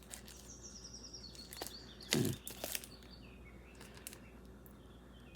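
Handling noise from small jewelry items and their packaging: light clicks and rustles, with a louder knock about two seconds in. A short run of faint high chirps sounds in the first second or so.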